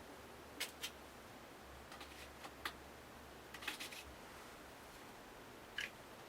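Several short, sharp clicks at irregular intervals, including a small cluster a little past halfway, over a faint steady background.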